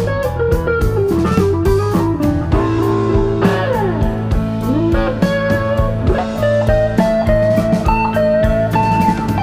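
Background music: a guitar-led instrumental with bass and drums, its melody bending and sliding in pitch.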